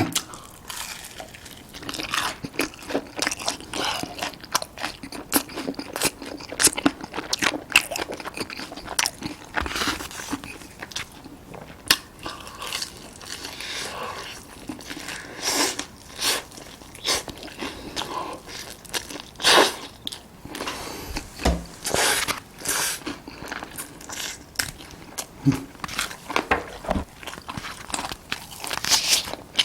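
Close-miked biting and chewing of crispy fried chicken: irregular crunches, some sharper and louder, with chewing in between.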